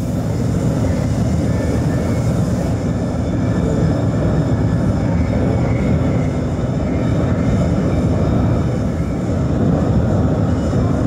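Steady, loud low rumble of running industrial machinery.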